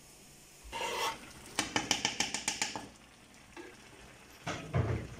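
A utensil stirring stewing vegetables in a frying pan: a scrape about a second in, then a run of quick scraping, clicking strokes against the pan, and softer stirring after.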